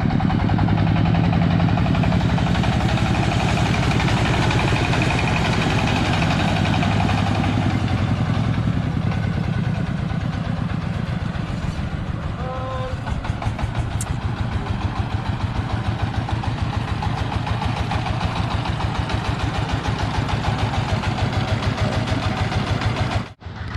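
Diesel engine of a mobile rice huller running steadily with rapid, even firing pulses, easing slightly in level about nine seconds in.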